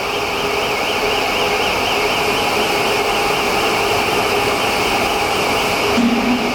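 Door-making CNC router running: a steady machine noise with a wavering high whine over the first couple of seconds, and a brief low hum near the end.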